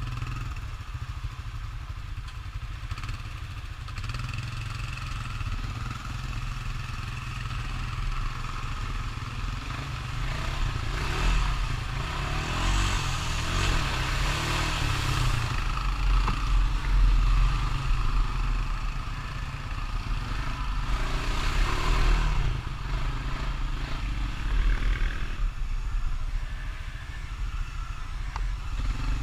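Honda Rancher ATV engine running under throttle while riding through mud, with louder surges about halfway through and again later.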